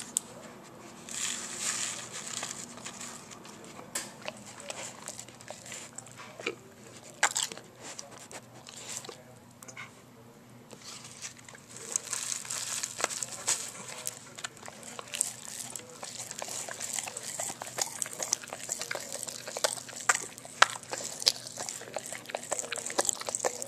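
A dog licking and chewing spilled Pop Rocks candy off the carpet: wet licking and crunching with many sharp little clicks and crackles, sparse at first and much denser from about halfway through. The candy packet crinkles around the halfway point.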